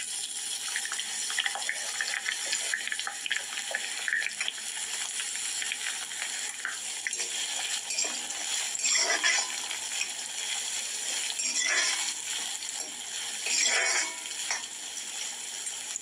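Chopped onion sizzling in hot oil in an iron kadhai, with a metal ladle stirring and scraping the pan; three louder scrapes come in the second half.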